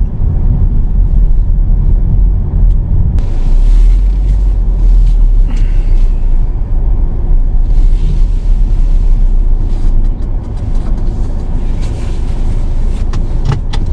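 Car driving slowly, heard from inside: a loud, steady low rumble of engine and tyres, with a few sharp clicks.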